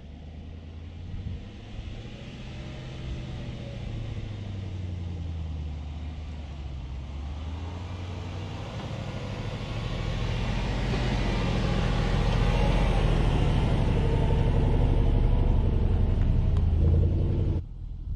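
Range Rover Sport's supercharged 5.0-litre V8 exhaust under throttle as the SUV drives through deep sand toward the camera, growing louder as it approaches, with the engine note rising and falling. The sound cuts off suddenly near the end.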